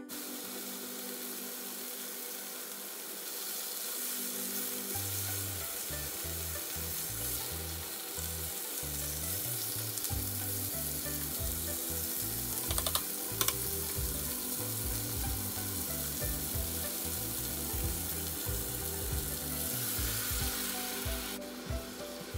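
Chicken breasts and chopped onion sizzling steadily in a hot non-stick frying pan, with a few light clicks of tongs against the pan about halfway through.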